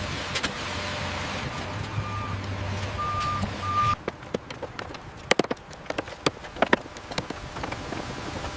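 Construction vehicle engine running steadily, with three short reversing-alarm beeps. About four seconds in, the engine sound stops abruptly and gives way to irregular sharp clicks and knocks.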